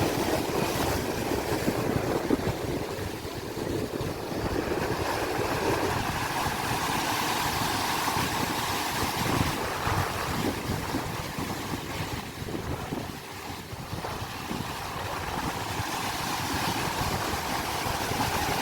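Sea waves washing, with wind buffeting the microphone in a steady, fluctuating rush.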